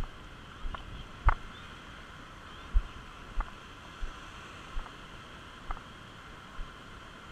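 Muffled rush of shallow surf and wind on the microphone, with irregular knocks and thumps about once a second, the strongest about a second and three seconds in.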